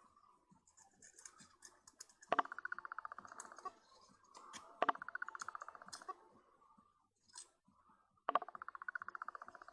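Small parts of a Vivitar Series 1 70-210mm zoom lens being worked back into the lens barrel by hand: three times a sharp click followed by about a second of rapid rasping, with scattered small clicks in between.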